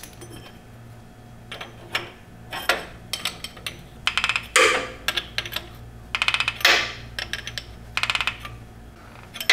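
A wrench turns the nut of a bearing-extraction tool, drawing a worn needle bearing out of a Toyota clamshell front differential. It makes bursts of rapid metal clicks, about one burst a second.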